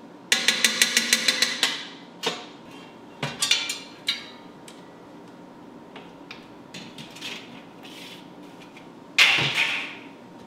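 Clicks, knocks and rattles from work inside a sheet-metal CNC control pendant cabinet. It opens with a quick, even run of about nine sharp clicks, followed by scattered knocks, and a louder short clatter near the end.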